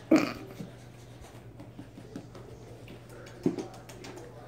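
Puppies moving about and being handled, making small scuffles and taps. There is a short, louder sound right at the start and another about three and a half seconds in, over a low steady hum.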